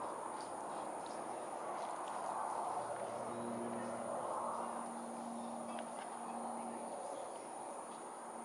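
Steady outdoor background noise with a continuous high-pitched insect drone.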